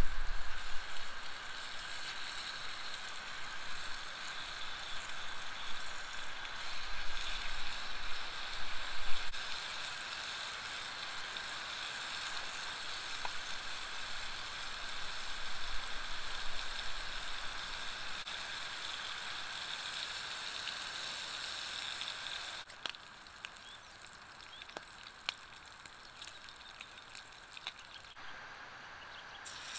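Meat frying in a small cast iron skillet over campfire embers: a steady sizzle that drops quieter about three quarters of the way through, with a few sharp ticks after that.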